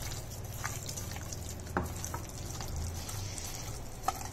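Hand squishing and kneading a wet mixture of ground mutton, egg and spices in a steel bowl: soft, wet squelching with a couple of sharper ticks, about two seconds in and near the end, over a steady low hum.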